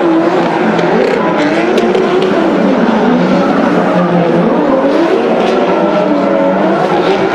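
Several drift cars sliding together, their engine notes rising and falling against one another as they rev through the slides, over the hiss and squeal of spinning tyres.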